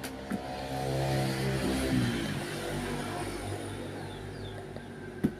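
A motor vehicle engine passing by, loudest in the first two seconds and then fading away.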